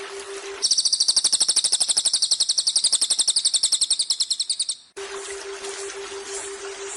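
Cililin bird singing a fast, high trill of about ten notes a second for about four seconds. It cuts in sharply over a waterfall's rush and stops abruptly, and the waterfall returns.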